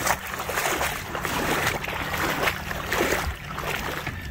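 A person wading through shallow sea water, the water sloshing and splashing with each stride, several times in a row.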